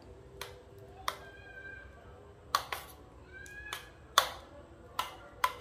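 A steel spoon tapping and scraping against a stainless-steel bowl as soft banana halwa is pressed level: a string of light clicks. Two short rising squeals come about one and a half and three and a half seconds in.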